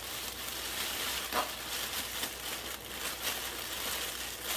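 Plastic fish-shipping bags rustling and crinkling as they are handled, a steady crackly hiss.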